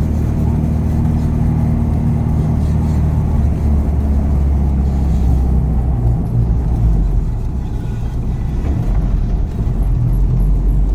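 H22-swapped Honda Civic driving, its engine and road noise steady, with the engine note shifting roughly six to eight seconds in. Through it runs a loud noise from the wheel that the driver takes for a brake rubbing or the brake dust shield scraping.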